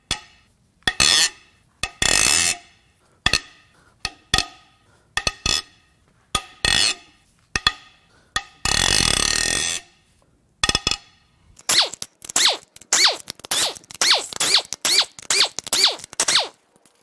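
Head bolts on a Toyota 2UZ-FE 4.7-litre V8's cylinder head being cracked loose with a long breaker bar: about a dozen sharp metallic cracks over the first eight seconds. Then a steady rasp lasting about a second, and near the end a fast run of clicking as the loosened bolts are spun out.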